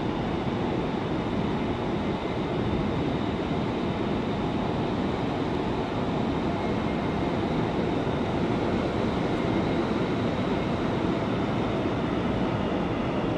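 Steady rush of air through the underground train tunnel behind the platform screen doors, pushed ahead of the approaching airport people-mover train, with a faint high steady whine.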